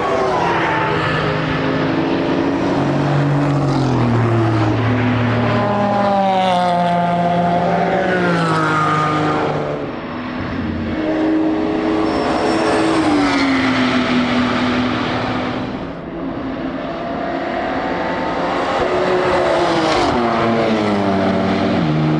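Several racing cars passing one after another at full speed, their engine notes rising in pitch under acceleration and falling away as each goes by.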